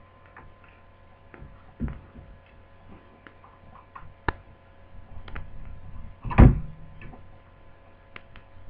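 Small clicks and taps of a screwdriver and loose parts while screws are taken out of the side of a laptop screen's frame, with a louder knock about six and a half seconds in.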